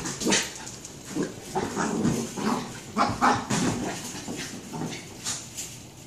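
Small dog making short, irregular excited noises while it attacks a large inflatable play ball.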